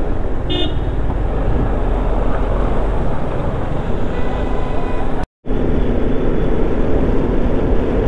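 Motorcycle engine running under steady wind rumble on the microphone while riding, with a short vehicle horn beep about half a second in and a fainter horn tone around four seconds in. The sound drops out completely for a moment just after five seconds, then the riding noise resumes.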